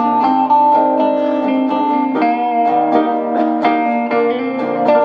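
Guitar music: a melodic plucked-string tune with notes changing every fraction of a second.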